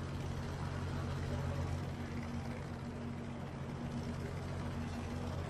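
Steady helicopter engine and rotor noise, a continuous low drone with an even hum.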